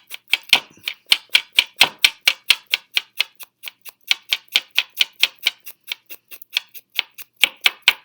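Rapid, even clicking, about six or seven sharp clicks a second, dipping briefly in level a little past the middle.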